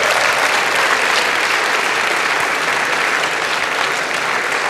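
Audience applauding, a dense, steady clapping that eases off slightly near the end, in response to news that the university's accreditation has been reaffirmed.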